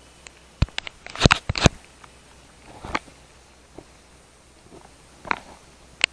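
A handful of sharp knocks and scrapes, the loudest a quick cluster about a second in, with a few single ones scattered after it.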